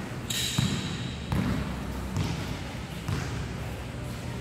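Basketball bouncing on a hard indoor court, a thud every second or less, in a large echoing hall. A brief high squeak comes about half a second in.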